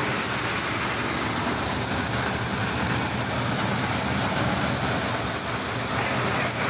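Tractor engine running steadily under load, driving a Royal paddy thresher as straw is fed in: a constant engine drone with an even rushing noise from the threshing drum over it.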